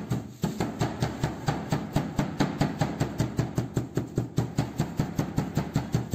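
Meat mallet pounding a slice of beef wrapped in a plastic bag on a wooden countertop, in rapid, even blows, about six a second, flattening the meat.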